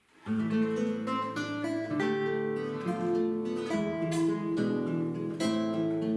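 Duet of plucked string instruments starting to play about a third of a second in, after a quiet pause, with sustained chords and melody notes in a moderate tempo.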